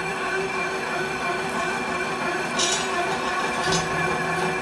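Steady din of running workshop machinery, with two light metallic clinks as the steel strip coil is handled on the decoiler frame.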